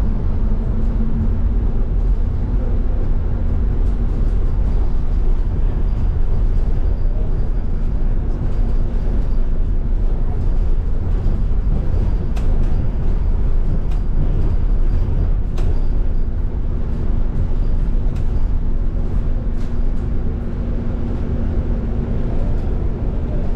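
Cabin noise of an Irizar IE-TRAM bus under way: a steady low road rumble with a constant hum and scattered light clicks and rattles.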